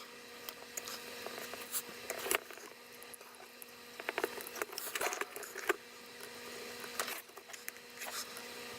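Faint, scattered small clicks and short scrapes of tools and parts being handled on a power-supply circuit board during capacitor replacement, over a faint steady hum.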